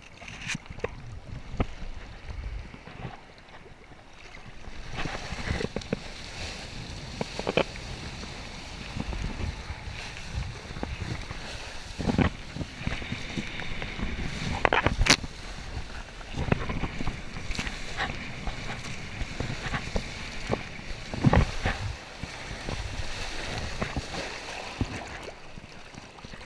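Water rushing and slapping under a Tona kiteboard as it rides across choppy sea, with wind buffeting the microphone. There are a few sharp splashes, the loudest about halfway through and again some seconds later.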